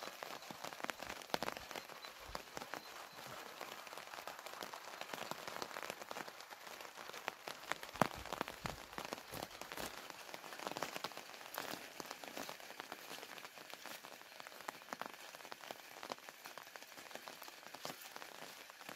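Rain falling steadily, with many separate drops ticking.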